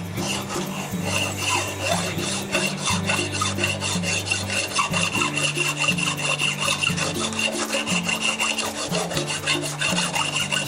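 Hand file scraping steel in rapid repeated strokes, filing down the ridges inside an axe head's eye so the new handle will seat, with a thin metallic ringing over the strokes. Background music plays underneath.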